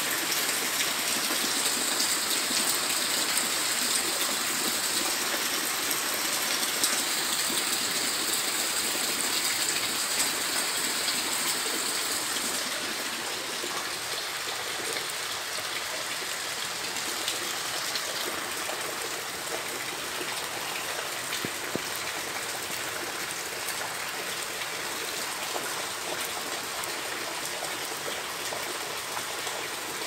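Heavy rain falling steadily during a hailstorm: a dense, even hiss that eases a little about twelve seconds in, with a few sharper ticks.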